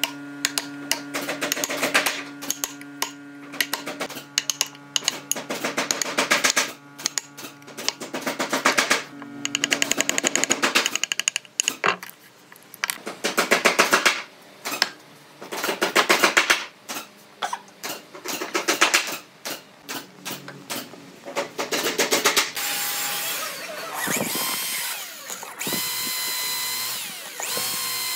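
Wooden mallet striking a steel chisel against wooden dowels in a tabletop: many sharp knocks in quick bursts. Toward the end a cordless drill bores into a wooden slab, its pitch rising and falling as it speeds up and slows in short runs.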